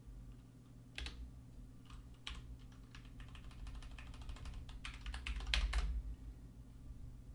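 Typing on a computer keyboard: a run of quick key clicks, sparse at first and thickening into a fast burst about five to six seconds in, over a steady low hum.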